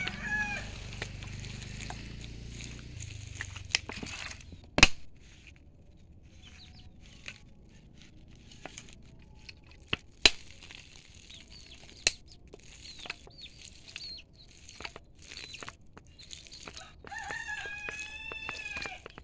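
A rooster crowing twice, once at the very start and again near the end, with small birds chirping in between and a few sharp clicks, the loudest about five and ten seconds in.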